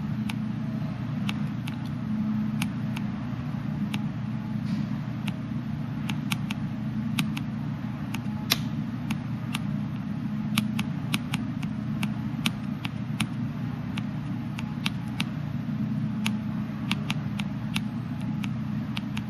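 Stylus tapping and sliding on a Palm Treo smartphone's touchscreen while Graffiti letters are written: short dry clicks at irregular intervals, roughly one or two a second, over a steady low hum.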